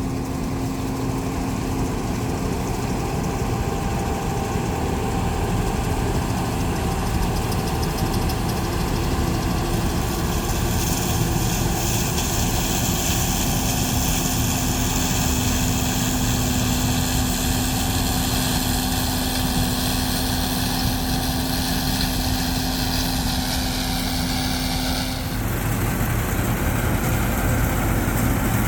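Combine harvester running steadily while cutting soybeans, a constant engine rumble with a steady whine over it. About 25 seconds in the whine slides down in pitch and stops, and the low rumble gets slightly louder.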